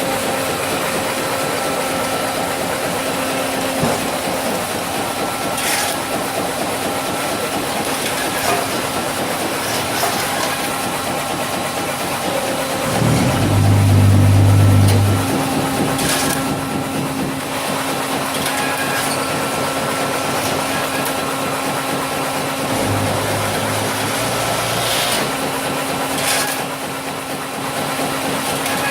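XTpack two-ram baler's hydraulic system running: a steady machine hum with a loud low hum for about two seconds near the middle and again more briefly later, and short hisses about every ten seconds.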